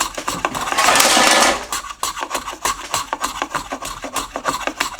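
Stanley 220 block plane chamfering the edge of a board: one long, loud stroke about a second in, then a run of short, rapid scraping strokes. The blade is ground to 30 degrees and not fully sharp, so the cut is a little bit slow.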